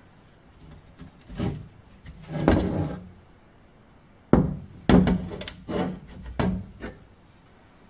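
Handling noise from a steel M40 helmet being turned over in the hand: scattered knocks, a short rubbing scrape a little before the middle, then a quick run of sharp knocks and clicks in the second half.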